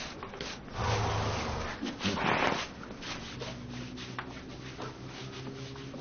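A horse blowing out hard through its nostrils twice, the first time about a second in for most of a second, then briefly again about two seconds in.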